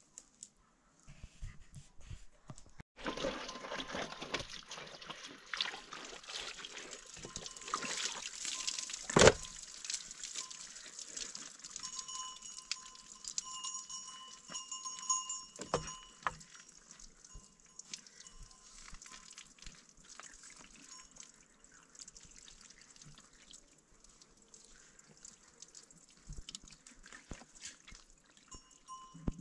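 Water running and splashing from a hose into a water container, thinning to a trickle later on, with one sharp knock about nine seconds in.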